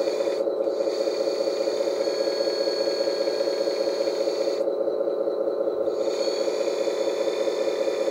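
Hydraulic pump of a 1/14 scale RC crane truck running steadily, with a fast, even pulse, as the hydraulic crane is folded back.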